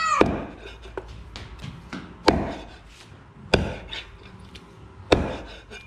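Heavy cleaver chopping through meat and bone on a thick wooden chopping board: four hard chops about a second and a half apart, with lighter taps between them.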